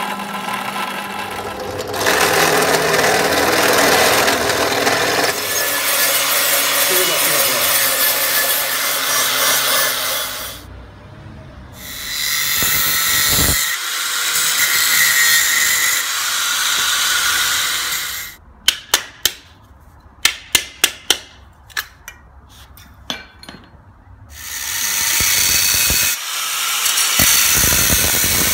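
A drill press motor whines and its bit bores through a thin steel cylinder, then an angle grinder cuts into the steel in long loud runs. Partway through, the grinding stops for a quick series of about ten sharp knocks, then resumes.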